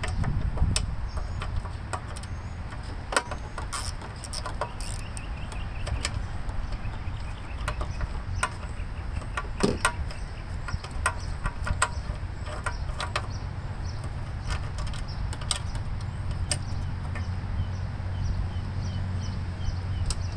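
Ratchet and socket working bolts on a Briggs & Stratton Classic lawnmower engine: short metallic clicks and clinks at uneven intervals as the tool is turned and handled.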